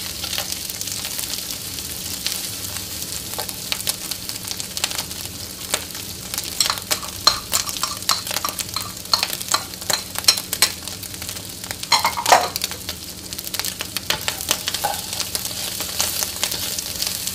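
Dried shrimp and shredded dried squid sizzling in lard in a wok, stirred and tossed with a spatula that scrapes and knocks against the pan. The spatula clicks come thick and fast in the middle, with one sharper scrape about twelve seconds in.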